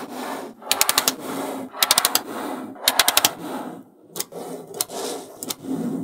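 Small magnetic balls clicking together in quick rattling runs as rows of balls snap onto a growing flat sheet, about four runs, with a soft rub of balls sliding on the table between them.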